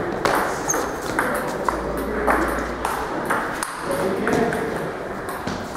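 Table tennis ball clicking back and forth between the bats and the table during a practice rally: a string of short, sharp ticks at uneven spacing.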